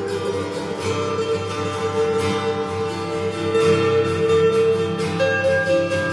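Music: guitar played in a solo song performance, an instrumental stretch with long held notes and repeated strokes.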